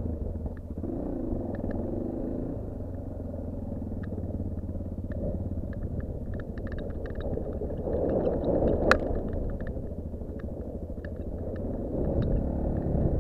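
Honda TRX400EX sport quad's single-cylinder four-stroke engine running under throttle while it is ridden. It gets louder about eight seconds in and again near the end, with a sharp knock about nine seconds in and scattered light ticks.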